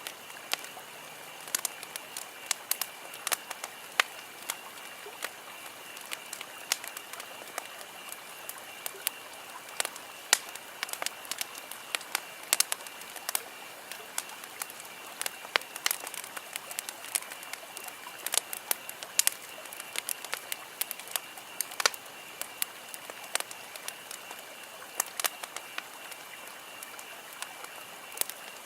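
Campfire burning: wood crackling with frequent sharp, irregular pops and snaps over a steady hiss.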